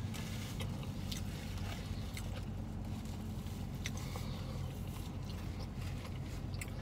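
People chewing and biting into fried chicken sandwiches, with small scattered clicks and crinkles from napkins and paper wrapping, over a steady low hum in a car's cabin.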